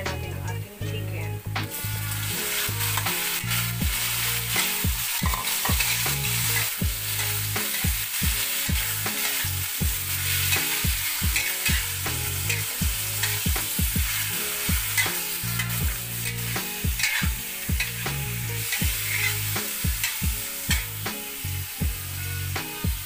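Raw chicken pieces frying in hot oil in a steel wok. A steady sizzle starts about two seconds in as the chicken goes into the pan, and a metal spatula scrapes and knocks against the wok again and again as the chicken is stirred.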